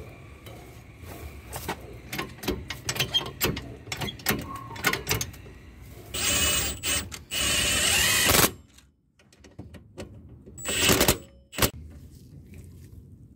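Ratchet wrench clicking while the suspension bolts of the rear trailing arm are tightened. Scattered clicks and knocks give way to two longer runs of fast clicking about six to eight and a half seconds in, and a shorter run near eleven seconds.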